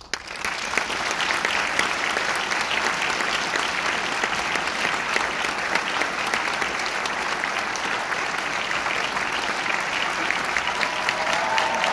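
Audience applauding, starting suddenly and holding steady throughout: many hands clapping at once.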